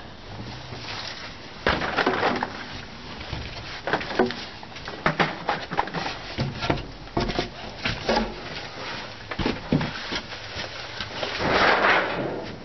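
Irregular knocks, clicks and clunks of objects being handled and set down against wood in a small shed, with a rustle near the end.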